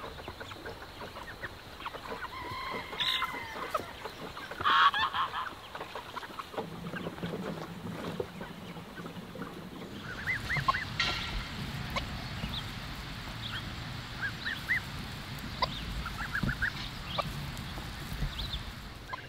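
A flock of domestic fowl calling in scattered short honks and yelps, with a louder cluster of calls about five seconds in. A low steady rumble runs underneath for the second half.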